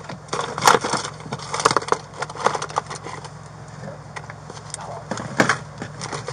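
Rustling, crinkling and clattering of papers and small objects as a gloved hand rummages through a car's door pocket and console during a search. The noises come in short, irregular bursts over a steady low hum.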